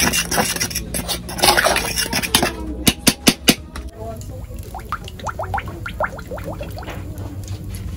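A metal fork scraping and clinking around an aluminium pot of flour as it is stirred, then a few sharp knocks about three seconds in. After that, cooking oil glugs out of a plastic bottle into a cast-iron pot.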